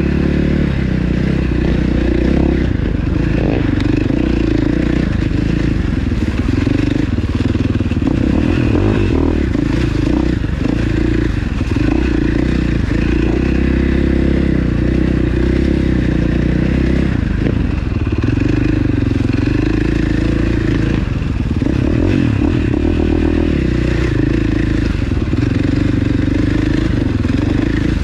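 Yamaha Banshee 350 ATV's two-stroke twin engine running continuously under load on a trail, its note rising and falling as the throttle is opened and eased off.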